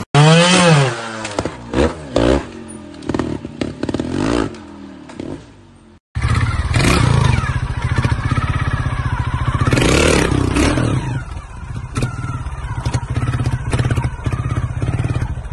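Trials motorcycle engine revved in quick blips, pitch sweeping up and down, with knocks as the bike hops, fading away. After a sudden cut about six seconds in, another trials motorcycle engine runs with a fast pulsing beat, revs hard about ten seconds in, and its tyres knock and clatter on rock.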